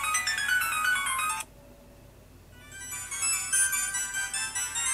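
Built-in MIDI ringtones previewed through an iPhone 2G clone phone's loudspeaker. One electronic melody cuts off abruptly about a second and a half in, and after a short pause a different ringtone melody starts.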